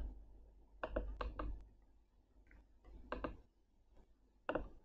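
A few faint, sharp clicks in small clusters: a computer mouse being clicked. The clusters come about a second in, around three seconds, and near the end.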